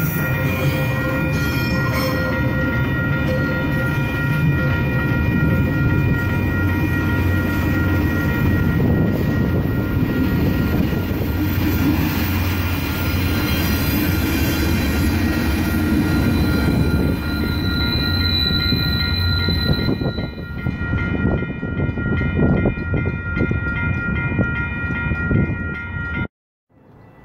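Metra commuter train of bilevel cars and a diesel locomotive passing close by a grade crossing, with a heavy rumble of wheels and engine that fades out about 20 seconds in. Steady ringing tones, most likely the crossing bell, carry on over the train and cut off suddenly near the end.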